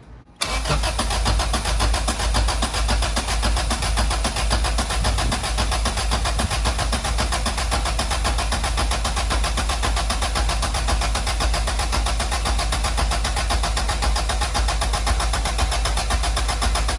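Honda B20 four-cylinder engine in an EG Civic running steadily on its first start-up after the engine swap. It cuts in suddenly about half a second in and holds an even level throughout.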